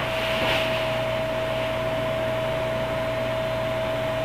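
Steady background hum and hiss with one constant whining tone, unchanging throughout: room noise.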